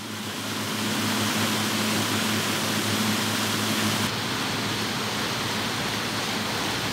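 Water rushing and splashing from a floating pump-driven sprayer throwing a plume over a pond, with a low steady motor hum under it. About four seconds in the sound changes abruptly to a brighter, hissier rush and the hum drops away.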